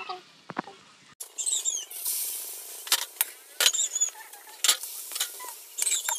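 A small animal's short, high-pitched squeaky whimpers, several times over, amid scattered clicks and taps.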